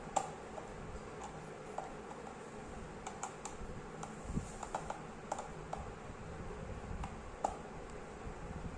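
Screwdriver clicking and scraping against the terminal screw of a modular switch as a wire is screwed in tight: scattered light clicks, in small clusters in the middle and a sharper one near the end.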